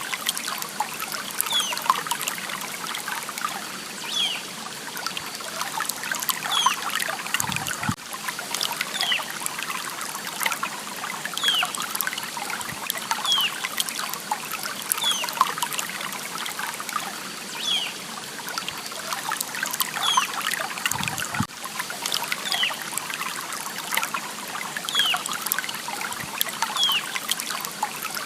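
Water trickling and babbling over stones in a small stream, a steady splashing hiss. A bird repeats a short, high, falling call every second or so.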